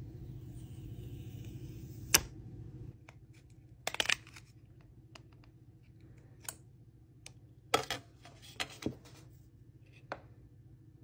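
Printed plastic protective film being peeled off a new iPod touch screen, giving a faint peeling hiss and a scatter of sharp plastic crackles and clicks, with the device handled in between. A low background hum drops away about three seconds in.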